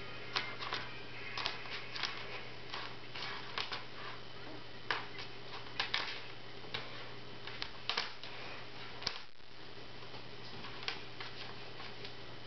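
Kitten's paws and claws tapping and scratching on a wooden tabletop as it bats at a thin cord: irregular light taps and clicks, dying away about nine seconds in apart from one more near the end, over a faint steady low hum.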